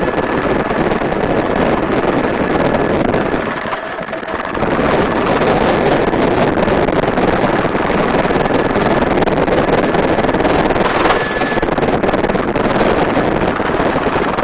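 Helicopter in flight, its rotor and engine noise mixed with heavy wind buffeting the microphone through the open door.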